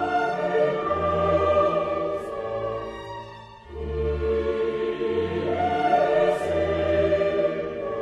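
Background music: slow, sustained orchestral music with choir-like voices, in two long swelling phrases over held bass notes, dipping briefly about three and a half seconds in.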